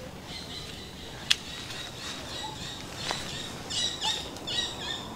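Small birds chirping in quick high bursts, busiest in the last couple of seconds, over a faint outdoor background. A single sharp click a little over a second in, and a fainter one about three seconds in.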